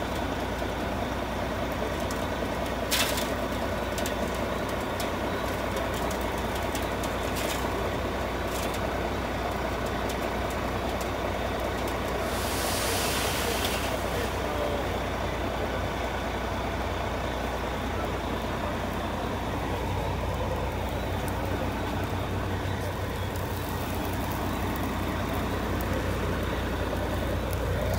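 Dump truck's diesel engine running steadily while the body is tipped to dump its load. A burst of hiss comes about halfway through, and there are a few sharp clicks near the start.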